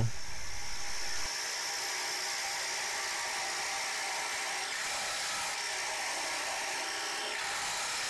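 Drill press running steadily, its 1.5-inch spade bit boring a hole into a wooden block.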